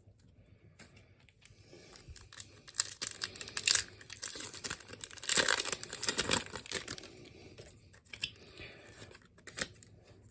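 Foil Pokémon booster pack wrapper being torn open and crinkled, the crackling loudest in the middle, followed by a few light clicks.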